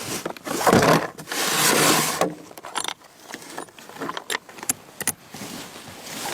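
Tent fabric being handled: bursts of rustling and scraping, then a few sharp clicks about four to five seconds in.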